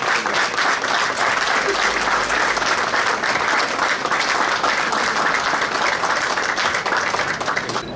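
Crowd applauding, a dense steady clapping that stops abruptly at the end.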